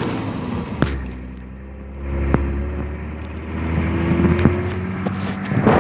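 Nissan Y60 Patrol's engine pulling the vehicle over beach sand, heard from inside the cab as a steady low rumble. It eases off about a second in, then climbs steadily in pitch from about two seconds in as the vehicle accelerates. A few short sharp knocks come through, as from the body jolting over bumps.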